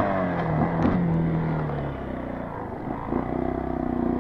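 Single-cylinder dirt bike engine. Its pitch falls over the first couple of seconds and it runs quieter for a moment, then it revs up again, rising in pitch near the end.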